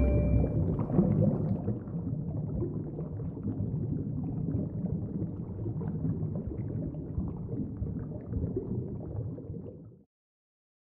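Muffled underwater ambience: a steady low rumble with faint crackling, cutting off suddenly near the end.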